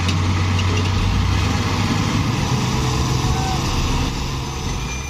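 Steady low diesel drone of a small river ferry's engine running under power, with the hiss of propeller wash churning the water at its stern as it holds the loaded pontoon against the bank.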